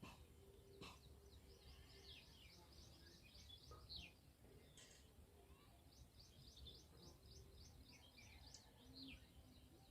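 Near silence with faint birds chirping in the background: scattered short, high chirps, some in quick runs of several a second, over a low steady hum.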